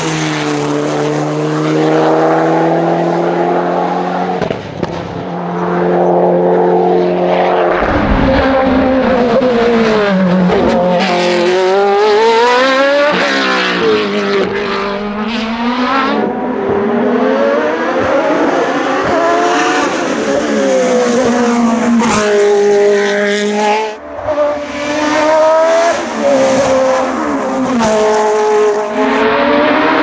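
Hill climb race car engines at full throttle, several cars in turn: the revs climb, drop sharply at each gear change and climb again, with a couple of brief lifts off the throttle.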